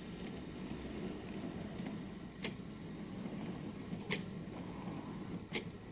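Accurascale OO gauge model PCV cement tank wagons rolling along the track, a steady low rumble of wheels on rail. Three sharp clicks come about every one and a half seconds as the wheels cross the rail joints.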